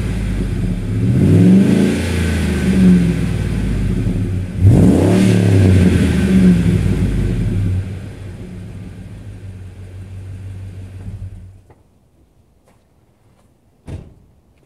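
2003 Ford Expedition's 5.4-litre V8 through a stainless-steel aftermarket muffler, with two quick throttle blips that rise and fall in pitch, then running more quietly before the engine cuts off near the end. A single sharp knock follows a couple of seconds later.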